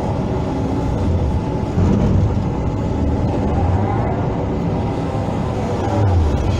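Hydraulic excavator's diesel engine running steadily under working load, swelling briefly about two seconds in and again near the end.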